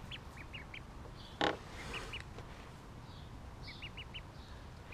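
Ducklings peeping: short, high peeps in little runs of three or four. A brief thump about a second and a half in.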